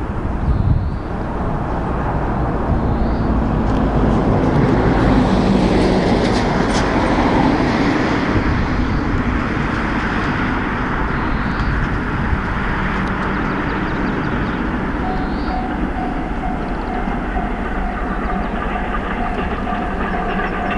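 Steam locomotive hauling passenger coaches along the track, a steady rumble of the train running on the rails that swells a little in the middle. A steady high tone joins in over the last few seconds.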